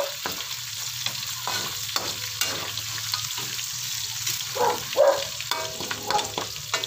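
Pork pieces with garlic and onion sizzling in hot oil in a wok, stirred and scraped around the pan with a spatula: the sautéing stage for pancit. The sizzle is steady, broken by short scrapes of the spatula against the pan, with a couple of louder strokes near the start and about five seconds in.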